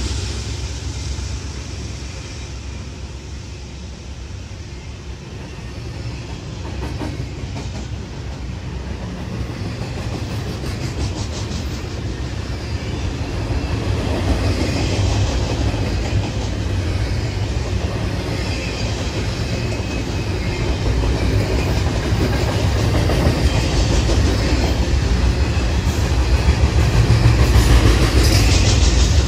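Double-stack container cars of a BNSF intermodal freight train rolling past close by: a steady rumble of wheels on rail that dips a few seconds in, then grows steadily louder toward the end.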